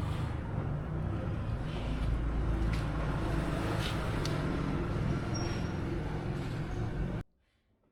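An engine running steadily with a low rumble, with a few light clicks over it; the sound stops abruptly about seven seconds in.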